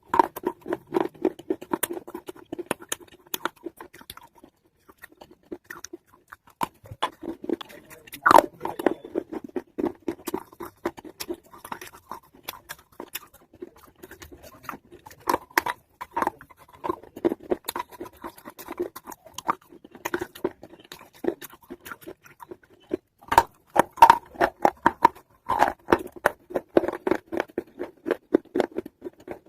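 Chewing and crunching pieces of a wetted baked-clay matka pot: a long, irregular run of crunches and clicks, with a few louder bites about 8 seconds in and again near the end.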